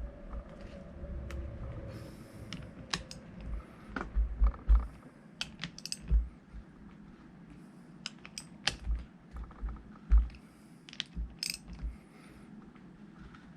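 Hand tools working bolts on a tractor hydraulic pump: irregular sharp metallic clicks and clinks, with low handling thumps in between.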